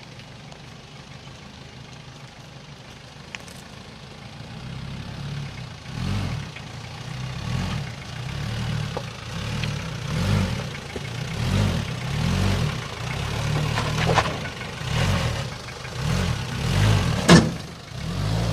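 Nissan Frontier D22's diesel engine running with a repeated knocking ('tik tik tik'), heard as regular swells about once a second from about six seconds in, with a sharp knock near the end. The knock comes from a sticking injector nozzle, not the connecting rods, and it went away once the nozzles were calibrated.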